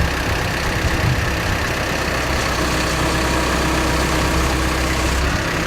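Engine of construction machinery running steadily at idle, with a low hum that drops away about five seconds in.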